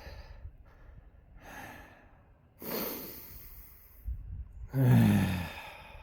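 A hiker breathing hard, with about four heavy breaths. The last and loudest, near the end, is a voiced sigh that falls in pitch.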